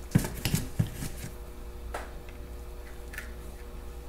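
A few soft clicks and taps of small metal carburetor parts being handled as a Zenith carburetor's float assembly is taken apart, mostly in the first second or so and once more near two seconds, over a faint steady hum.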